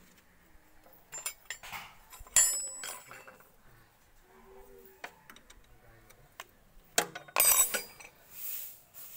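Spanners and metal parts clinking and knocking in short sharp strikes that ring briefly, the loudest about two seconds in and a quick cluster near the end.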